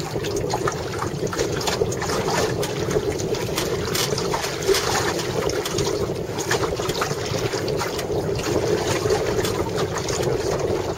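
Wind buffeting the microphone and water rushing and slapping along the hull of a small sailing dinghy under way in choppy, squally water, with many small irregular knocks and splashes.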